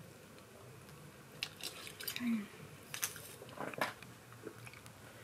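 Hands working through thick hair close to the microphone: scattered soft crackles and rustles, a few sharper ones about three to four seconds in, over a low steady room hum.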